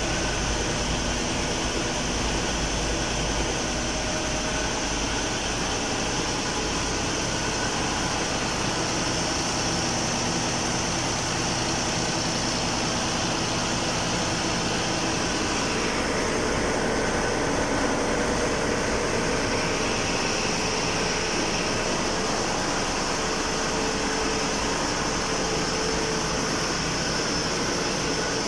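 Steady hum of a ship's engine-room machinery running. The hum is loud and constant, made up of several steady tones over a noisy haze, and its tone shifts about halfway through.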